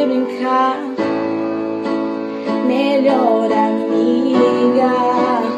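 Song music: a female voice sings a wordless, gliding melody over held keyboard chords.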